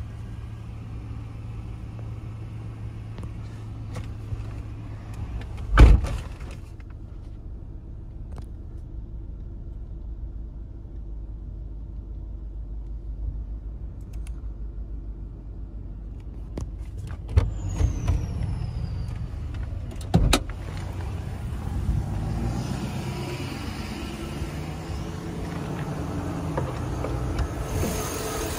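2006 Chevy Avalanche's V8 idling steadily after a cold start. A loud thump comes about six seconds in, and a few more knocks follow around the middle.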